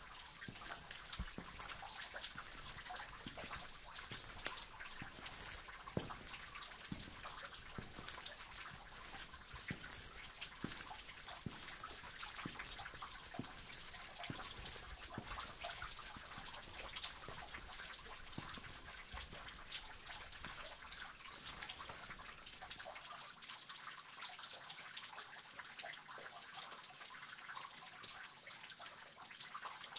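Cave water: a steady trickle with frequent distinct drips, roughly one or two a second, falling into water.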